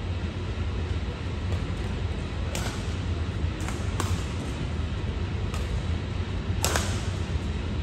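Badminton hall sound: a steady low hum with about five sharp, separate cracks of racket hitting shuttlecock, the loudest a few seconds in and near the end.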